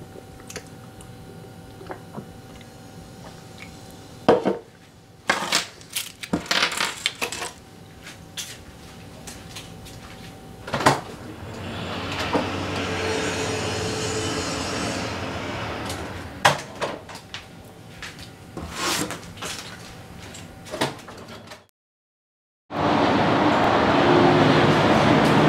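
Small objects such as car keys, wired earphones and sunglasses picked up one by one off a hard tabletop, giving scattered clicks, clinks and knocks, with a stretch of steady hiss midway. Near the end the sound cuts out for about a second, then a louder steady outdoor rushing noise comes in.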